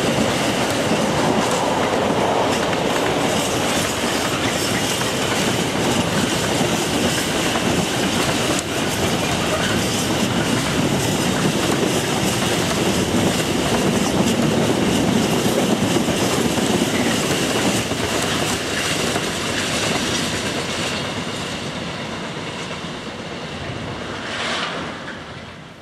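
Container freight train's flat wagons rolling past, wheels clattering over the rail joints, with a thin steady high squeal. The noise fades near the end as the tail of the train draws away.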